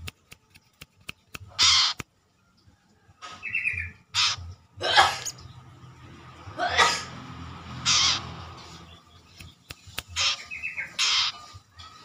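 Male brown-throated sunbird giving short, harsh rasping calls, about seven of them, in aggressive reaction to a finger prodding it. A few sharp clicks come before the first call.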